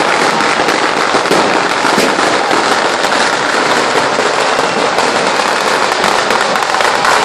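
Chinese firecrackers going off in a loud, unbroken crackle of rapid small bangs.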